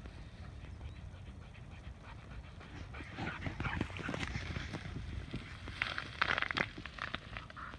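Dog panting and running past close by, its ragged breaths loudest about six seconds in.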